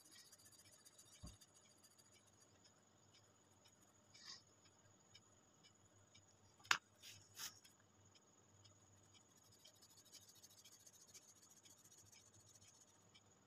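Faint scratching of a colour pencil shading back and forth on paper, with a low thump about a second in and a sharp click a little past halfway, followed by two softer ticks.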